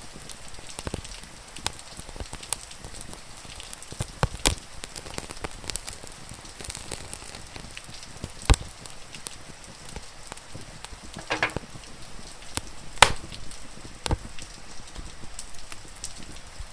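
Wood fire crackling, with irregular sharp pops and snaps over a steady hiss of rain. The loudest pops come about eight and a half and thirteen seconds in, with a brief sizzle shortly before the second.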